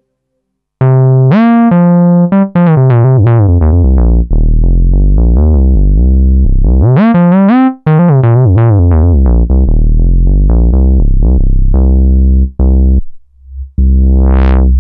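Novation Peak synthesizer playing its 'Trouser Mover' factory patch: a loud run of low, rich bass notes, several gliding up in pitch. Near the end one held note brightens and darkens again as the filter cutoff is swept by hand, then it stops.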